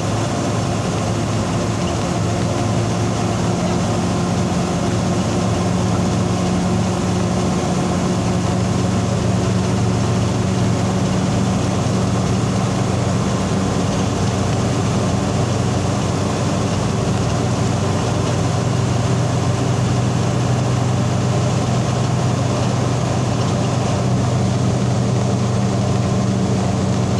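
A motor vehicle's engine running steadily under way, a constant low hum with road noise and no break.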